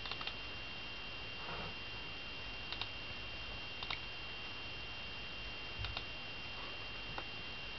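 Quiet room tone: steady hiss with a constant high-pitched whine, and a handful of faint, isolated clicks scattered through.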